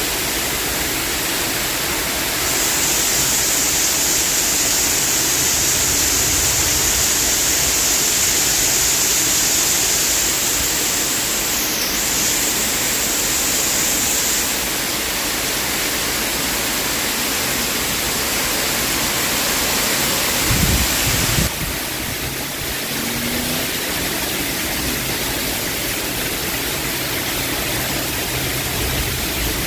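Heavy storm rain pouring down in a steady, loud hiss, with a brief low thump about two-thirds of the way through.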